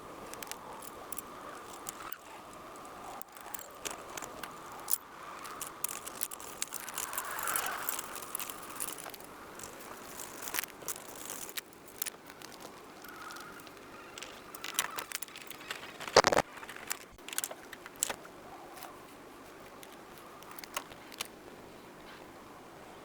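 Intermittent metallic clinks and clanks of hand tools and steering parts being handled during tie rod adjustment, with one loud clank about 16 seconds in.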